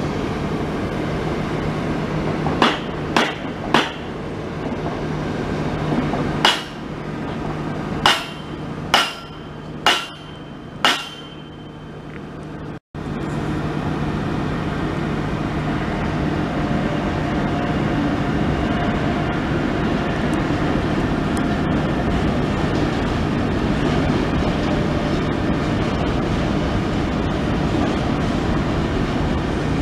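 About eight sharp, ringing metallic knocks, irregularly spaced, over a steady low engine hum. After a sudden break, a freight train of loaded hopper wagons hauled by an E.483 electric locomotive passes with a steady rolling rumble of wheels on rail.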